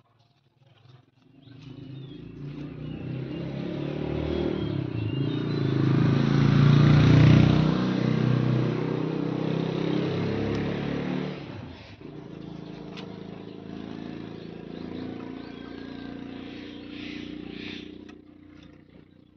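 A motor vehicle engine passing close by. It grows louder to a peak about seven seconds in, drops suddenly about twelve seconds in, then runs on steadily at a lower level before fading near the end.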